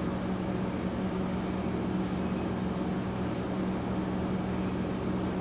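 A steady low machine hum with an even hiss over it, unchanging throughout.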